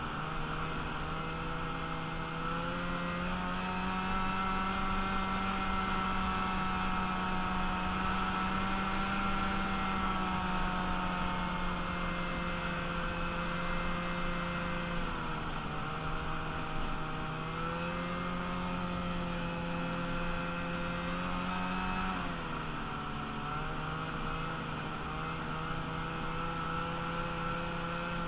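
A freshly rebuilt vehicle engine running steadily on a ride. Its note dips and picks back up twice, about halfway through and again later, as the throttle is eased and reopened.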